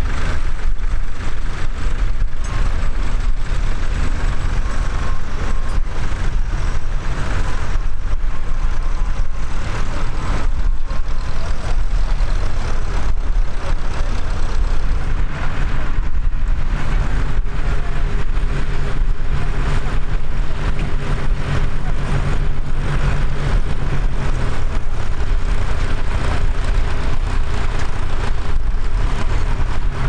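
Tractor engines running, a steady low rumble; about halfway in, the steady hum of a nearer tractor engine joins it.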